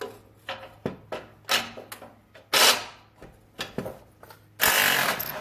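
Hand tools working loose the exhaust pipe bolts: a string of short metallic clanks and scrapes, about six in all, the last a longer scrape of about half a second near the end.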